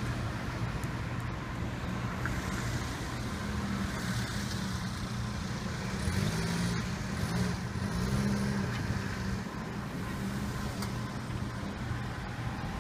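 Motor vehicle engines running steadily, with an engine's pitch rising and falling about six to nine seconds in.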